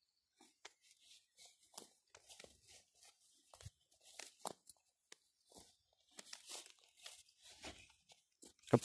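Irregular rustling and crunching of dry grass and stalks under the feet of a dog and its handler walking through vegetation, with a louder crunch near the end.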